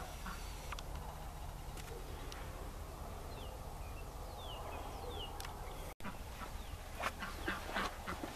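Faint outdoor farmyard ambience: a steady low rumble with a few short, falling bird chirps in the middle.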